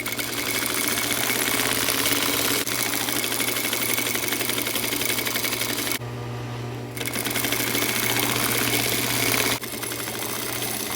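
Electric sewing machine running fast, stitching a straight line along the edge of thin lining fabric. The stitching stops for about a second around six seconds in, then starts again and runs quieter near the end.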